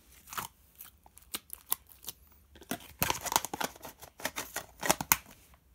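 Slime being handled, pulled and squished by hand, making a run of sticky clicks and crackles, busiest about three seconds in and again near five seconds.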